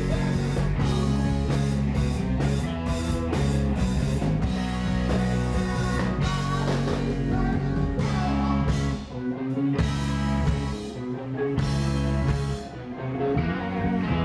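Live rock band playing loud: distorted electric guitars over bass and a drum kit, recorded from the audience. The level dips briefly twice, about nine seconds in and again near the end.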